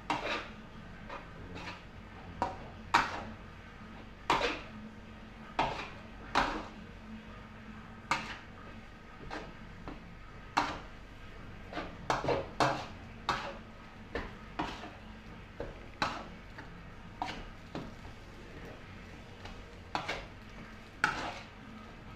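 Metal spatula scraping and knocking against a steel wok while stir-frying rice, in irregular strokes about once a second over a steady low hum.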